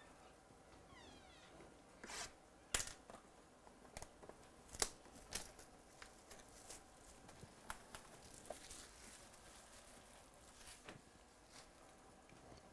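The plastic wrap on a Panini Chronicles baseball card box being torn and crinkled open, a series of short sharp rips that are loudest in the first five seconds, then lighter crinkles and taps.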